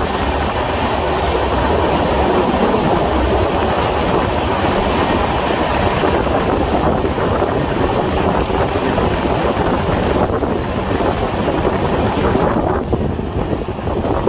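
Express passenger train running at speed, heard from on board the coach: a steady rolling rumble of wheels on the rails, with wind buffeting the microphone.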